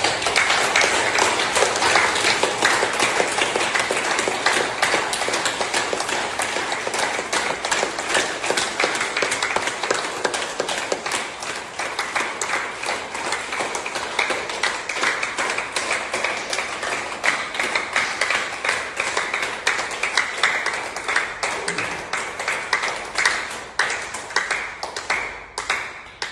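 A group of people clapping their hands together continuously, a dense crackle of claps echoing in a hall. Near the end it thins out to a few scattered claps and stops.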